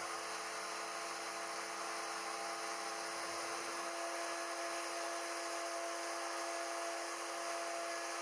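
High-speed spindle of a CNC-Step High-Z S-720/T router running steadily while its small end mill cuts a thin metal sheet: a steady whine of several tones over an even hiss.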